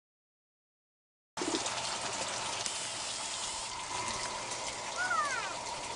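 Complete silence, then about a second and a half in water starts running and splashing steadily through an IBC aquaponics system.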